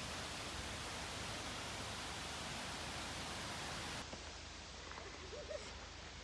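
Steady rushing noise with no distinct events. About four seconds in it changes abruptly to a slightly quieter, duller noise.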